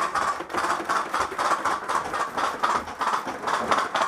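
Quick, irregular knocking and clatter of footsteps and carried gear as a player moves across the hollow floor of an aircraft fuselage.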